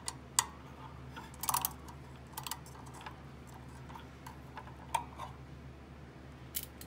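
Irregular light clicks and taps from a small flat ratcheting screwdriver being handled and worked on a screw.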